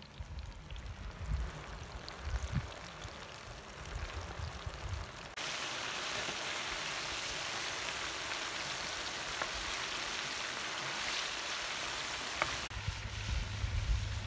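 Batter-coated slipper lobster pieces deep-frying in hot oil: a steady, even sizzle that cuts in suddenly about five seconds in and stops abruptly near the end. Before and after it, wind buffets the microphone with a low rumble.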